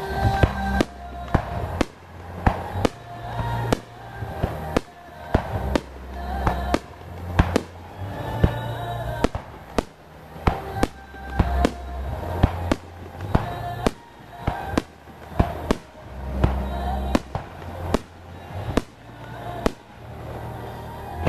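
Fireworks bursting one after another, a sharp bang every second or so, each with a short echoing tail. Music with deep bass notes plays underneath.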